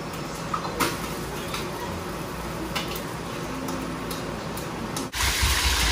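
A spatula tapping and scraping a wok, a few sharp clicks over a steady hiss of food frying. About five seconds in, the hiss dips briefly and comes back louder and rushing.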